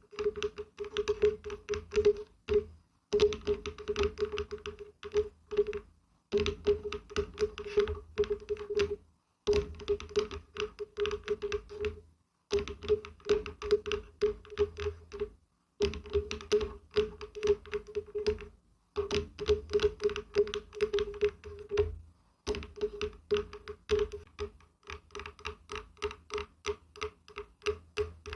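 Fingers or nails tapping rapidly on wood, in runs of quick taps a few seconds long broken by short pauses, each tap with a hollow, resonant ring.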